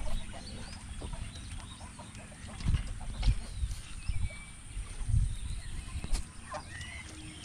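Domestic waterfowl calling in short, scattered calls, over several low, irregular thumps.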